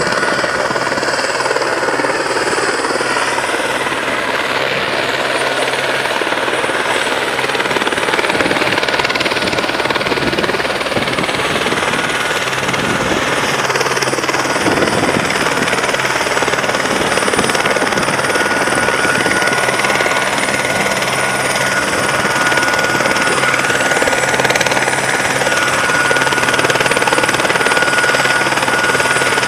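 Fire-brigade rescue helicopter running on the ground with its main rotor turning: steady, loud rotor and engine noise with a high steady whine that grows stronger past the middle.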